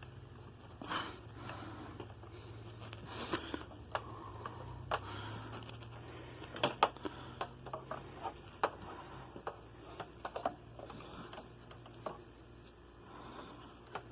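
Scattered clicks, knocks and rustling of objects being handled, with a steady low hum underneath.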